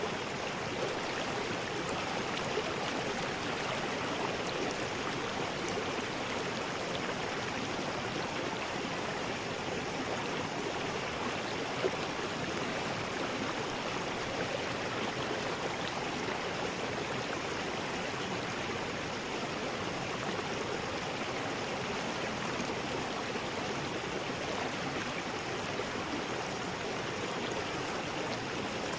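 River rapids: water rushing and splashing over rocks in a steady, unbroken rush.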